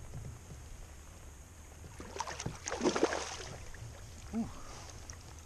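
Water and kayak sounds while a large trout is fought on the line: small knocks and clicks, with a splash about three seconds in.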